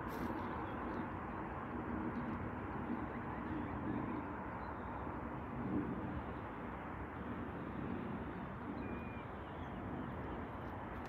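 Outdoor ambience: a steady rush of noise, with a faint short bird chirp about nine seconds in.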